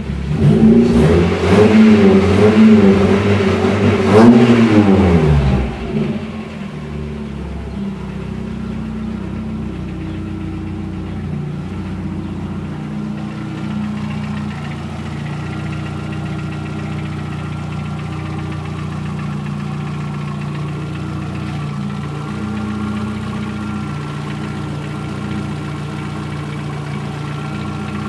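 Volkswagen Gol 1.0 8-valve four-cylinder engine revved briefly, pitch rising and falling, then dropping back to a steady hot idle about six seconds in. At idle an irregular 'cléck cléck' clatter sounds from inside the engine, as if something were loose, which the owner takes for a knocking piston pin.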